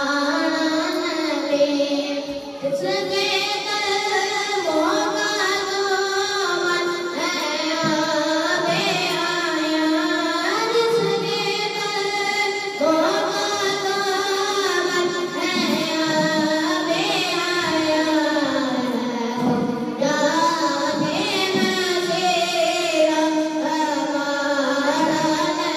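A boy sings a naat, the devotional poem in praise of the Prophet, solo into a handheld microphone, his voice amplified through a portable loudspeaker. He sings in long held notes that slide up and down.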